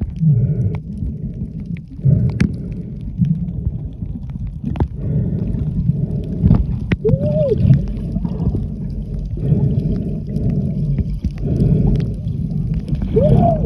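Muffled underwater sound from a submerged camera: a low rumble and gurgling of moving water that swells every few seconds, with scattered sharp clicks. Twice there is a short muffled tone that rises and falls.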